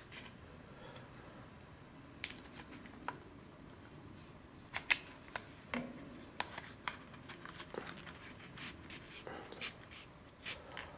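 Blue masking tape being pulled and pressed down along a glider's fuselage nose: scattered small crackles and clicks of tape and handling.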